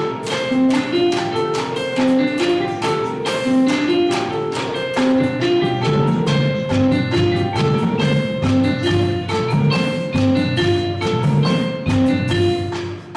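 Indoor percussion ensemble playing: a fast, repeating pattern of struck mallet-keyboard notes, with deeper drum strokes joining about halfway through.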